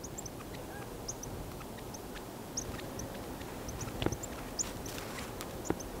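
Small winter songbirds calling: many short, high chips and twitters scattered throughout, with a few sharper clicks about two thirds of the way in.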